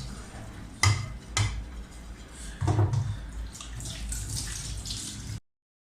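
Dishes and pots knocking in a kitchen sink with water running, a few sharp clatters in the first three seconds. The sound stops abruptly near the end.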